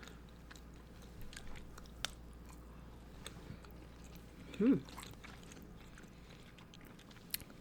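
Close-up chewing and biting of a crumbly Indian sweet: soft, wet mouth sounds with small scattered clicks, and one short voiced 'mm' just under halfway through.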